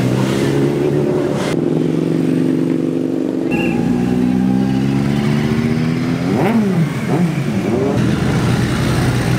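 Motorcycle engines running as sportbikes ride slowly down the pit lane past the camera, a steady engine drone that shifts in pitch as one bike follows another. About six seconds in there are a few quick revs that rise and fall.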